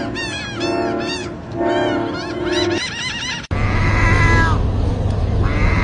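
A run of short, quick chirping calls over steady held tones, then after an abrupt cut two drawn-out meows, the second near the end.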